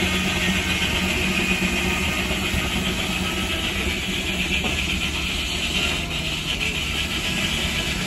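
A 1911 belt-driven sawmill saw cutting a board off a big log, a steady loud noise that eases slightly about six seconds in as the cut finishes. The Case steam tractor powering the mill runs steadily underneath.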